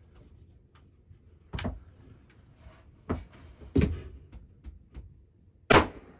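A few sharp knocks and clicks of handling close by, then near the end a single loud gunshot from a deer-hunting firearm, with a short echo after it.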